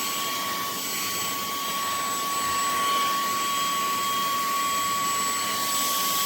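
Cordless handheld vacuum running steadily, a constant whine over a rush of air.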